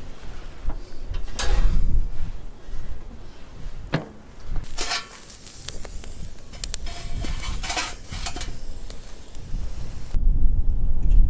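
Metal items clinking and rattling in scattered bursts, over a low rumble of wind on the microphone.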